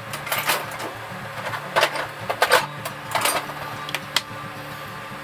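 Tools and parts being handled on a workbench: a run of irregular knocks, clinks and rattles, ending in one sharp click.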